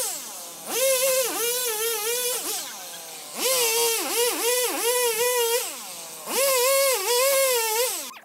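Gasoline chainsaw cutting through an oak log in three bursts of full throttle, each about two seconds long, dropping back to a lower, quieter running between cuts. During each burst the engine pitch sags and recovers as the chain works through the wood.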